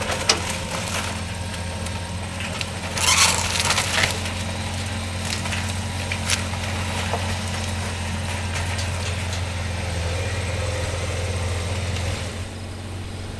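Building demolition: a heavy machine's engine runs steadily under the splintering and crunching of wooden structure being torn down. The loudest crashes come about three to four seconds in.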